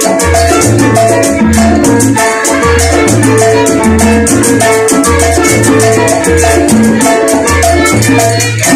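Live charanga band playing salsa: flute, violins and congas over a repeating low bass line, with a steady high percussion ticking several strokes a second.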